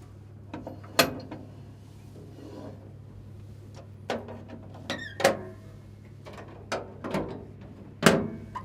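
Air cleaner canister covers on a John Deere 870 excavator being unlatched and pulled off: a string of sharp clicks and knocks, with a brief squeak about five seconds in, over a low steady hum.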